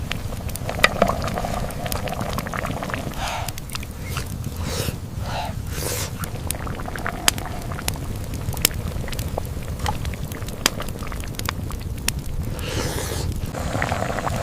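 Wind rumbling on the microphone, with scattered sharp clicks and light crackles through it.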